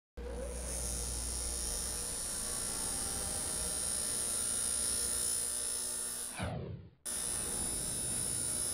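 Angle grinder with an abrasive wheel on metal: a steady high grinding hiss over a low hum, starting abruptly. About six and a half seconds in, a falling swoop drops in pitch, the sound cuts out for a moment, then the grinding starts again.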